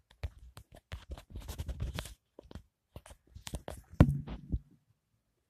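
Irregular scratching and rustling with scattered clicks, and one sharp knock about four seconds in.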